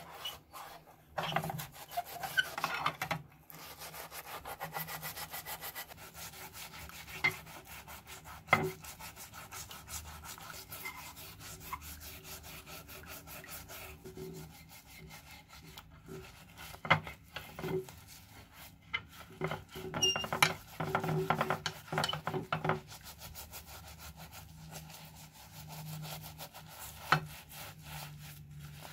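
Mesh scouring pad scrubbing a scissors blade in a glass dish of soapy liquid: fast, continuous rubbing strokes that come in louder spells, with a few sharp knocks now and then.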